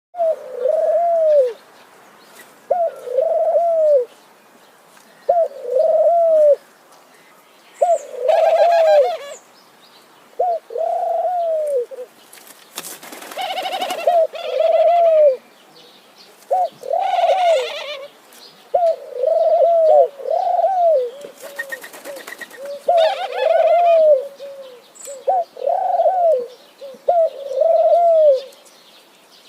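Doves cooing over and over, each phrase two or three arching coos, with a new phrase every two to three seconds. Several short bursts of higher bird chirping come in between.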